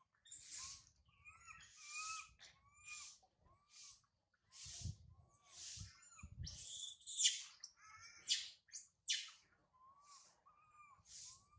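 Young macaque crying: a steady run of short, high, squeaky cries, about one every two-thirds of a second, breaking into louder, longer screams that fall in pitch a little past the middle, then settling back into the short cries.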